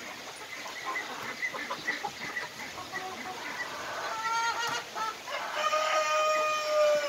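A flock of young Gilan chickens clucking and calling in short notes. Near the end a young cockerel gives a crow, a held call of about a second and a half, after a shorter call just before it.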